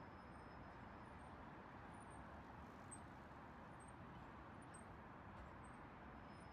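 Near silence: a faint, steady hum of distant city traffic, with faint short high chirps repeating about once or twice a second.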